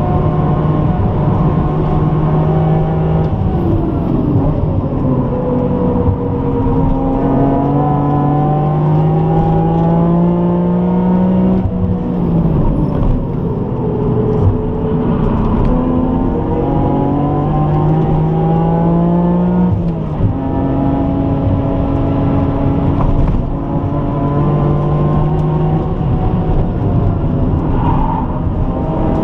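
BMW E46 M3's 3.2-litre straight-six, heard from inside the cabin, pulling hard on track. The revs climb in long rising pulls and drop sharply twice, about twelve and twenty seconds in, as the car brakes and changes gear.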